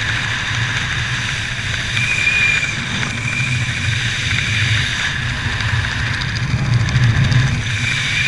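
Steady wind rushing over a helmet-mounted camera's microphone during a parachute descent under an open canopy, a low rumble with hiss and a faint whistle about two seconds in and again near the end.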